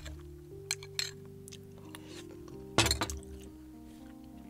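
Metal spoon clinking and scraping against a ceramic rice bowl: a few light clinks in the first second, then a louder cluster of clinks about three seconds in. Soft background music plays underneath.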